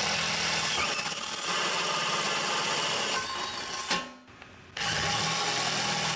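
Cordless drill enlarging pilot holes in a sheet-metal plate: the motor runs steadily for about four seconds, stops briefly, then starts again near five seconds in.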